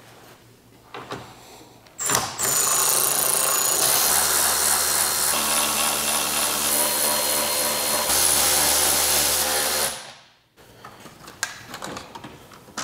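Electric ratchet with a 10 mm socket running for about eight seconds, starting suddenly and cutting off, as it backs out the bolts that hold the Tundra's grille assembly together. Light plastic clicks and knocks follow near the end as the grille piece is handled.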